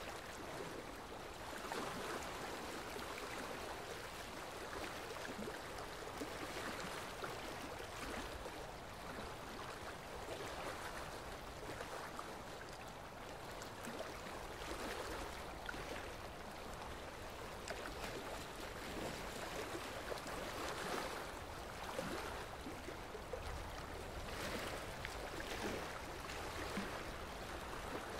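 Dental suction drawing off the ultrasonic scaler's water spray and saliva during tartar scaling: a steady watery hiss and gurgle that swells and fades every few seconds.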